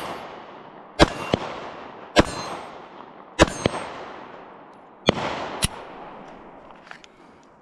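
Four 9mm shots from a Glock 43X MOS subcompact pistol, fired at a slow, steady pace about a second or so apart, each trailing off in an echo. Most shots are followed a moment later by a lighter, sharp crack.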